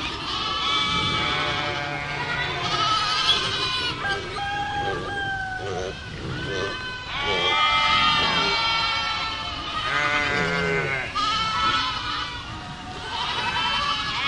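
A herd of goats bleating, many overlapping wavering calls one after another.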